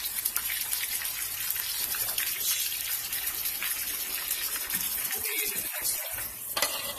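Catfish fillets frying in butter in a pan: a steady sizzling hiss full of fine crackles.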